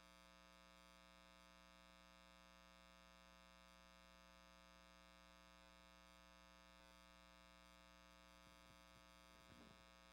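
Near silence after the music stops: only a faint, steady electrical hum, with a few faint soft sounds near the end.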